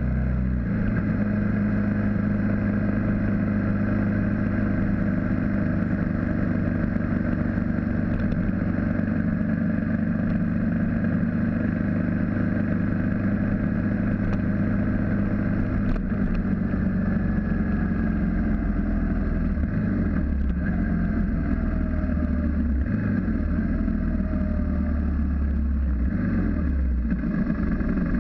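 Single-cylinder engine of a BMW G650GS motorcycle running steadily at cruising speed, heard from the onboard camera. The engine note dips briefly three times in the last third.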